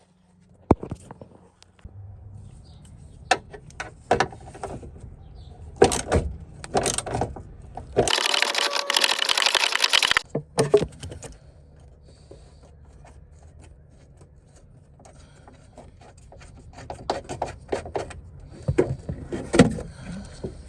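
Scattered clicks, knocks and scraping of hand tools and plastic interior trim being worked on in a car, with a dense, fast rattling lasting about two seconds near the middle, the loudest part.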